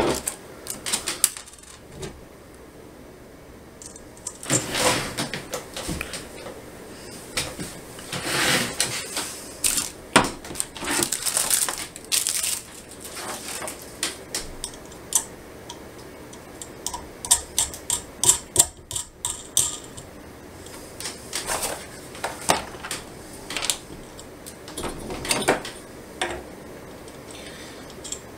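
Small steel washers and nuts clinking and clicking as they are picked up and fitted onto the bolts of an aluminum bed plate, in scattered, irregular clicks and short scrapes.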